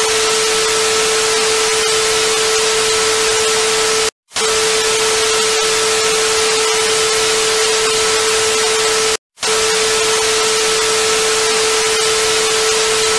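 TV no-signal static sound effect: a loud, steady hiss with a steady tone through it, cutting out dead twice for a moment, about 4 and 9 seconds in.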